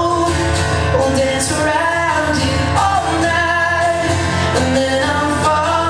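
Live acoustic pop song: a man singing over a strummed acoustic guitar.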